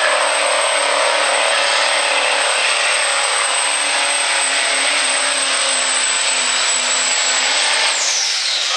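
Chevrolet Silverado diesel pickup pulling a weight-transfer sled at full throttle: a loud, steady engine roar with a high, steady turbo whistle. About eight seconds in, the whistle falls away in pitch as the truck lets off at the end of its pull.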